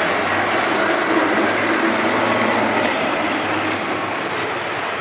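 Model train running on the layout track: the motors of the model Amtrak E8 and Southern Pacific E7 locomotives and the passenger cars' wheels make a steady rumble, with a low hum that fades about four seconds in.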